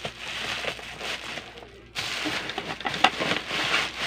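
Clear plastic parcel wrapping crinkling and rustling as it is pulled and peeled off a cardboard box. It breaks off for a moment in the middle, then resumes louder.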